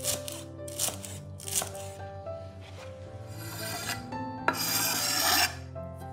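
Food-preparation noises over soft background music: a few short rasping scrapes, then about four and a half seconds in a sharp click and a louder rasping scrape lasting about a second.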